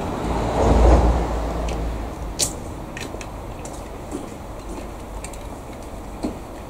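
Shinano Railway 115-series electric train running on the track: a low rumble that swells about a second in and then eases off, with a few sharp clicks from the wheels and rails.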